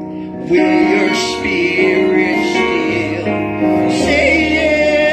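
A small group of gospel singers singing live over sustained instrumental accompaniment, the voices coming in strongly about half a second in.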